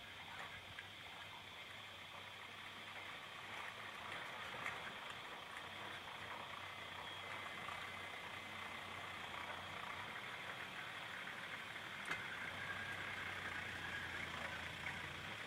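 Toyota LandCruiser HJ75 ute's diesel engine running as it drives, faint and distant, slowly growing louder as it approaches.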